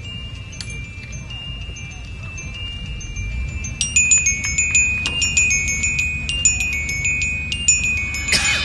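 Marching band front-ensemble mallet percussion ringing high, bell-like sustained notes that step in pitch as a slow melody. About four seconds in the strikes come thicker and louder, and near the end there is a brief shimmering wash of high ringing.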